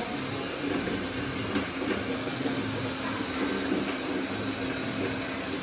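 Radio-controlled construction machines working: a steady mechanical whine with clattering and scattered sharp clicks.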